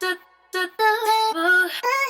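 Background music: a woman's voice singing a song in short held notes, with a brief pause near the start.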